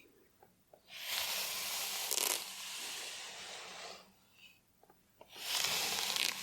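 Slow strokes through hair on a scalp, close to the microphone: two long rustling scrapes of about three seconds each, with a few small ticks in the pause between them.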